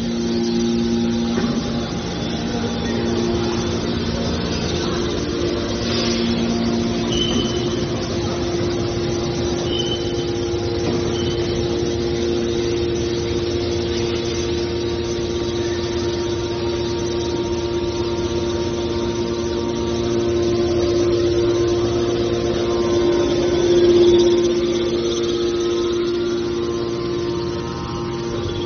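Hydraulic scrap metal baler running, a steady droning hum from its machinery that swells briefly about three-quarters of the way through.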